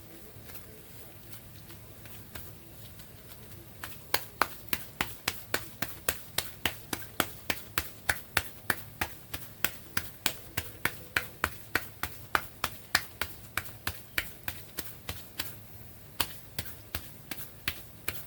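Sharp, evenly spaced taps on a hard surface in a kitchen, about three a second. They start about four seconds in, run steadily, break off briefly near the end, then come back for a few more.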